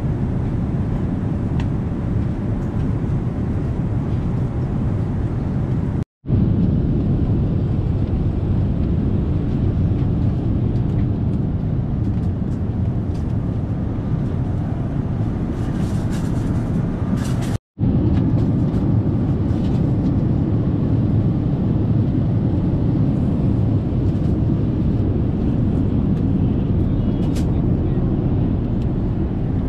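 Steady low roar of engine and airflow noise inside the economy cabin of an Airbus A380 in flight. The sound drops out for an instant twice, about six and seventeen seconds in.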